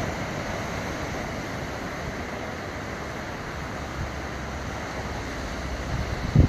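Steady rush of wind and sea waves on the microphone, with a low steady hum underneath from about two and a half seconds in and a short thump near the end.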